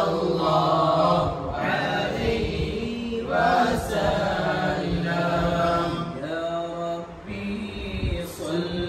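A group of men chanting an Islamic devotional recitation together in unison, in long drawn-out phrases with brief pauses for breath between them.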